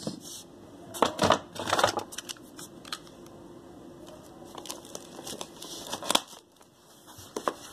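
A parcel's yellow packing tape and white foam wrap being cut and pulled open by hand. There are loud rustling, tearing bursts about a second and two seconds in, then scattered scratches and sharp clicks.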